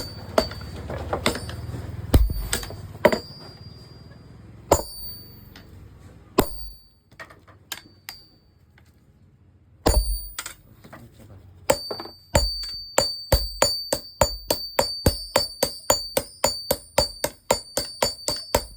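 Hammer blows on a parang blade on the anvil, each strike ringing with a high metallic tone. Scattered blows give way, after a pause, to a fast, steady run of about three strikes a second.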